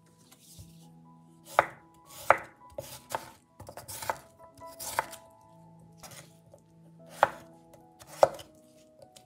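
Kitchen knife chopping food on a cutting board: about a dozen sharp, irregular strikes with short pauses between them.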